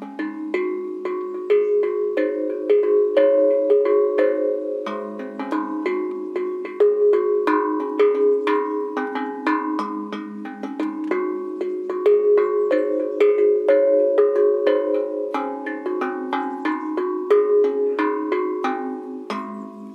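Homemade steel tongue drum (tank drum) played with felt mallets: a continuous melodic run of struck notes, about two or three a second, each ringing on and overlapping the next.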